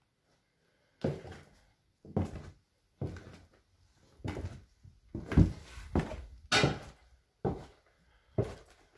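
Footsteps going down an old wooden staircase: a heavy thud on each tread, about one step a second, with one sharper, brighter step a little past the middle.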